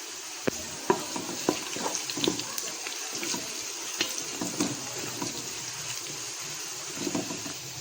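Onions and whole garam masala spices frying in hot ghee: a steady sizzling hiss with scattered irregular crackles and pops.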